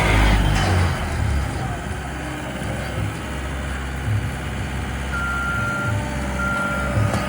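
Heavy diesel paving machinery running with a steady low rumble, louder in the first second. About five seconds in, a reversing alarm starts beeping, with long steady beeps roughly once a second.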